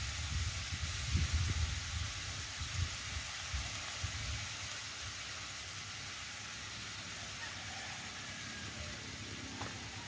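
Goat meat sautéing in a wok over a wood fire, a steady sizzling hiss as vinegar is added, with low rumbling in the first four seconds.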